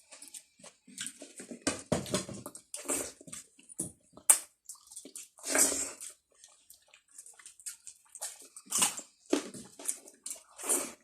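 Close-miked eating sounds: chewing, wet lip smacks and crunches come in short, irregular bursts, with a sharp click about four seconds in.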